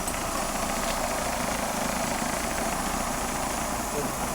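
Honda City ZX's freshly fitted second-hand engine idling steadily, being run in after a fresh fill of oil and coolant.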